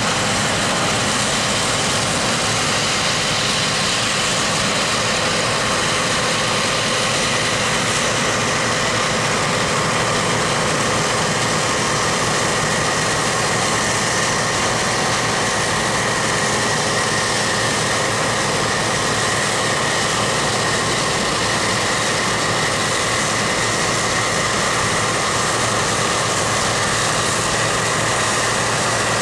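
Bizon Z056 combine harvester at work cutting and threshing grain: its diesel engine and threshing machinery running under load with a steady, even drone and a steady high whine over it.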